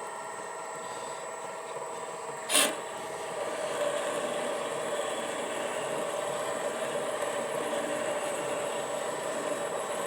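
MN-80 benchtop lathe running steadily with a whine while a thin drill bores a small hole in the spinning oil-cup blank. There is one sharp click about two and a half seconds in.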